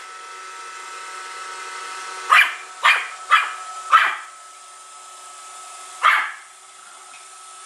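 Pomeranian barking: four quick barks about two and a half seconds in, then one more about six seconds in, over the steady whirring hum of a running Roomba robot vacuum.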